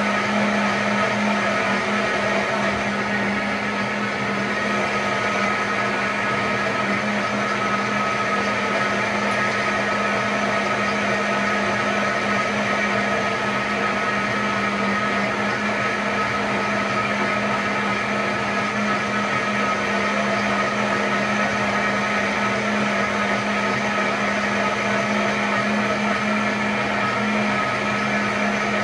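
High-powered countertop blender running steadily at full speed on its hot setting, liquidising boiled beetroot and carrot in their hot cooking broth into smooth juice: an even motor whine with a low hum that never changes.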